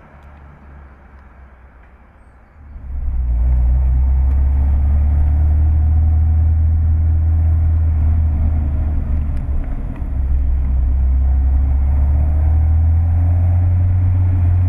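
Citroën DS 21's four-cylinder engine and road noise heard from inside the cabin while driving: a steady low drone. It comes in suddenly about two and a half seconds in after a fainter stretch, and dips briefly about ten seconds in.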